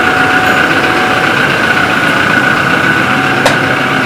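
Steady mechanical hum with a constant high whine running under it, and a single sharp click about three and a half seconds in.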